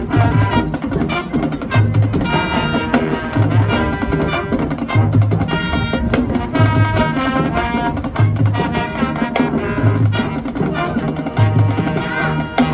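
Marching band playing: brass melody and harmonies over drums, with a strong low bass hit recurring about every second and a half.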